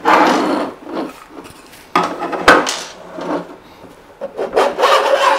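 3D-printed plastic wall panel being worked loose and slid out of the spectrometer frame: several bursts of plastic scraping and rubbing, with a sharp knock about two and a half seconds in.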